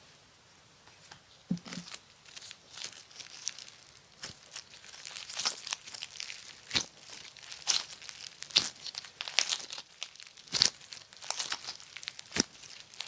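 Homemade pink floam slime, made slightly sticky and packed with foam beads, squished and stretched by gloved hands: wet, sticky crackles and clicking pops. A soft thud comes about one and a half seconds in, and the crackling grows dense from about four seconds in.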